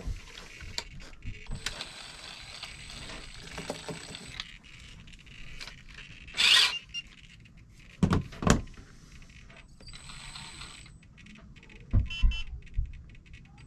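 Hands-on work on a Traxxas TRX-4 RC truck's diff-locker servo and servo saver: scattered clicks and knocks of small parts and tools, with a short loud hiss-like burst about halfway. At times a faint, thin, steady high whine sounds under the handling noise.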